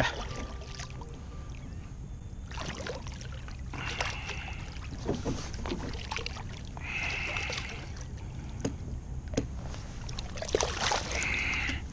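Water splashing as a large striped bass thrashes at the surface beside a kayak and a hand grabs it, with several splashes and the loudest near the end, over a steady low rumble.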